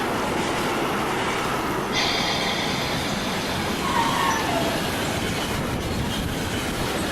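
Freight train sound effect of a train passing through: steady rolling noise of wheels on track. A high-pitched wheel squeal sets in about two seconds in, and a shorter falling squeal follows about four seconds in.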